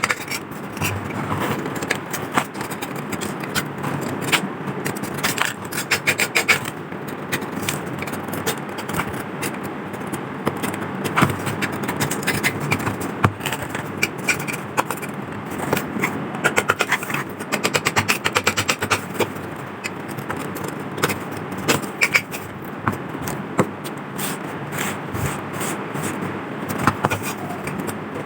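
Hand scraping and rubbing on rusty metal lamp parts, with frequent small clicks and knocks throughout.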